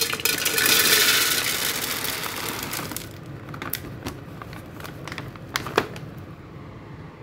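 Dry cat food kibble pouring from a plastic bag into a metal tin: a dense rattling rush for the first two seconds or so that thins out, then a few single clinks of stray pieces.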